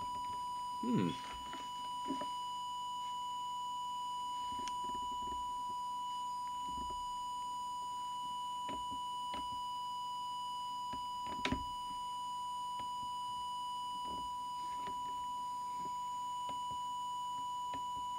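Steady, unbroken audio test tone from the radio test set and audio oscillator, used to check the CB transmitter's deviation. A couple of short knocks break in, about a second in and again about two-thirds of the way through.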